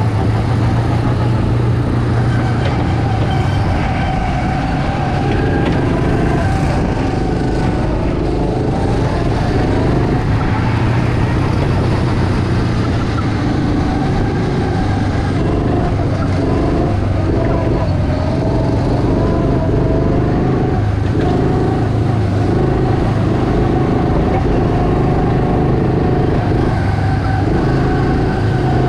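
Go-kart engine running steadily under throttle, heard from the driver's seat, its pitch wavering a little as the kart drives around the track.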